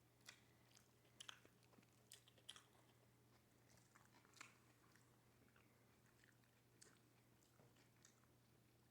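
Faint chewing and biting of a heavily topped pizza: scattered soft, irregular smacks and crunches.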